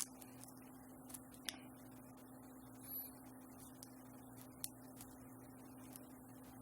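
Near silence over a steady low hum, with a few faint light clicks of the small plastic tracker parts being handled and pressed together.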